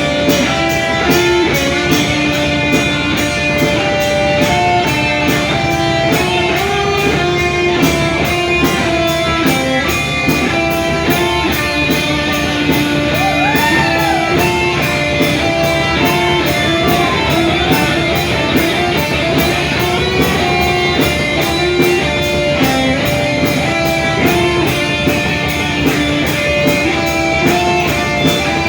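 Rock band playing an instrumental passage: electric guitar melody with sustained notes over bass and a steady drum beat.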